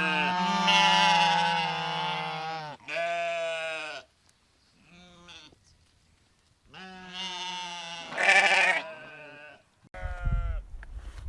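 Domestic sheep bleating: a long, wavering bleat, then several shorter bleats with pauses between them. A low rumble comes in near the end.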